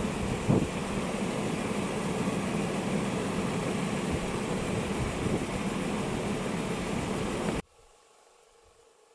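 A vehicle engine idling steadily, with one short knock about half a second in; it cuts off abruptly near the end, leaving only a faint hum.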